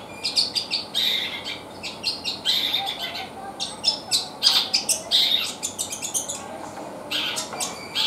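Caged long-tailed shrike (cendet) singing: a fast, chattering run of short high chips and notes in quick bursts, with a brief pause about three-quarters of the way through.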